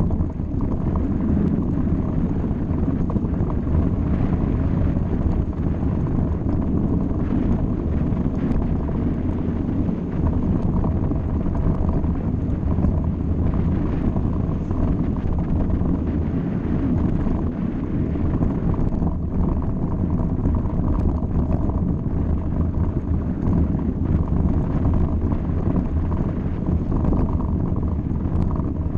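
Steady low rush of wind buffeting a mountain biker's camera microphone, mixed with the rumble of knobby tyres rolling over a rutted dirt track, with small rattles and ticks from the bike.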